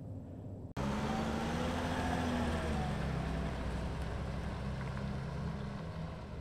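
Faint low cabin hum, then suddenly the louder steady run of an Iveco Daily 4x4 camper's diesel engine driving away across gravel desert, easing slowly quieter as it recedes.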